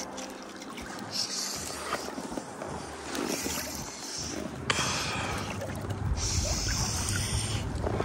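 Oars of a pontoon boat being rowed: a splashing swish with each stroke, about every two and a half seconds, over a low rumble that comes in about halfway through.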